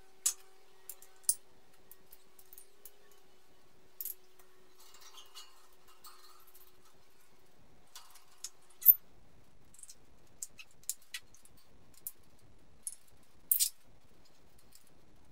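Scattered light clicks and taps of small plastic parts as a FrSky transmitter module's circuit board is fitted into its black plastic case. The loudest click comes about nine seconds in, and a quick cluster of clicks comes near the end.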